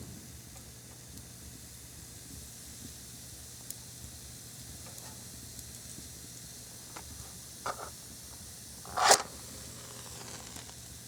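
A match struck against its box about nine seconds in: a short, loud scrape and hiss as it flares, after a few light taps. Around it, a faint steady hiss.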